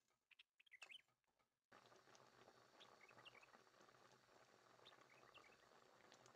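Faint bubbling of whole figs boiling in sugar syrup in a steel pot. It sets in steadily about two seconds in, with faint short high chirps over it.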